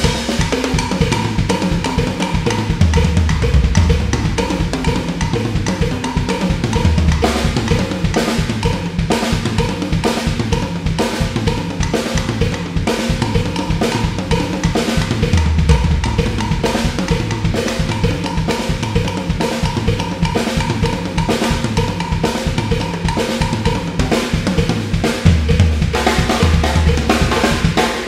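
Ayotte acoustic drum kit played as a solo: continuous, busy strokes on snare, toms and cymbals, with repeated runs of bass drum every few seconds.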